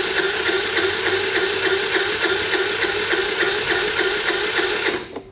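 Starter cranking the Wolf RX50 scooter's 49cc 139QMB four-stroke single for about five seconds, with an even, rapid rhythm, then stopping. This is a compression test with the gauge in the spark plug hole, and the engine makes only about 30 psi, far below the normal 150, a sign of an internal failure such as bad piston rings or poorly seated valves.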